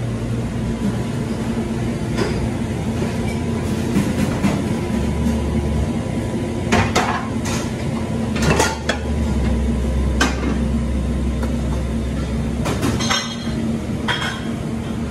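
Kitchen background: a steady low hum of equipment with scattered clinks and clatter of dishes and utensils, a cluster of them in the middle and a couple more near the end.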